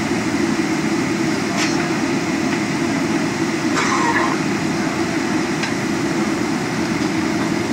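Steady low rumble of a Boeing 777-300's engines and airframe heard inside the cabin while the aircraft taxis, with three brief clicks from the cabin.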